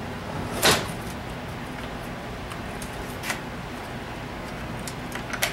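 Plastic chainsaw housing being handled and set on a steel workbench during reassembly: a sharp knock about a second in, a second knock about three seconds in, and a few light clicks near the end, over a steady low hum.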